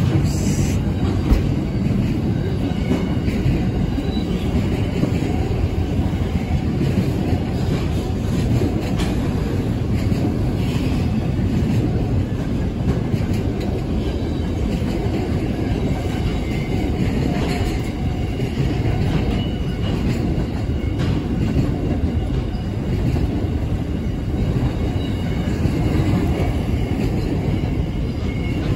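Intermodal freight train's container wagons rolling past, a steady rumble of steel wheels on rail with faint high wheel squeals now and then.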